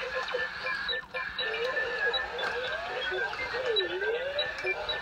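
Toy Star Wars droids (Smart R2-D2 and BB-8) chattering in electronic beeps and warbling whistles, with a swooping whistle that dips and rises again near the end.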